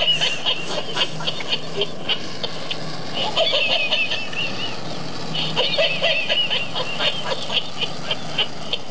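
Squeaky electronic yaps and whimpers from a plush toy dog's voice box, in repeated bursts of short wavering calls, with a low hum coming and going under them.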